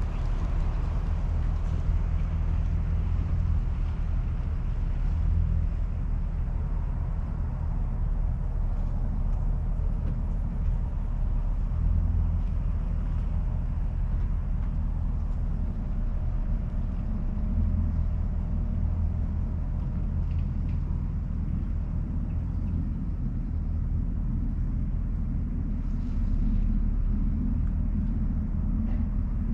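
Engine running steadily at low speed, a continuous low rumble.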